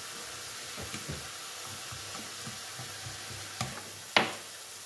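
Mushrooms, onions and pieces of pork belly sizzling in a frying pan, with a spatula stirring and tapping against the pan; a sharp knock about four seconds in is the loudest sound.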